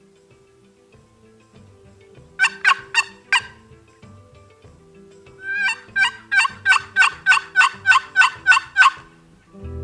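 Turkey calling in quick evenly spaced notes: a short run of four, then after a pause a longer run of about a dozen, with faint music underneath.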